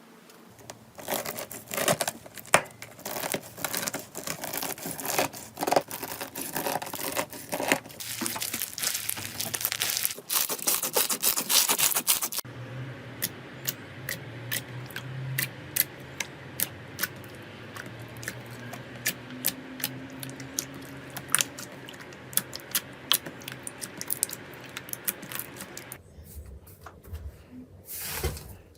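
Slime being squeezed and stretched by hand, making sticky crackles and popping clicks. The crackling is dense for about the first twelve seconds, then changes abruptly to sparser clicks over a steady low hum, with another change near the end.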